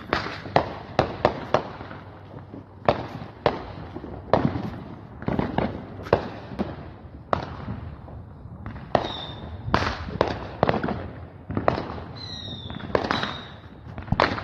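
Fireworks and firecrackers going off in quick, irregular succession: many sharp bangs and pops, with a few brief high whistles mixed in.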